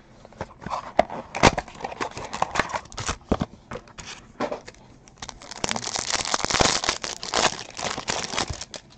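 Foil wrappers of basketball trading-card packs crinkling and tearing as packs are ripped open, with sharp clicks of cards being handled; the crinkling is densest through the second half.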